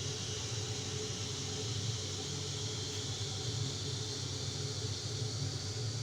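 Steady mechanical hum with a constant hiss over it, unchanging throughout.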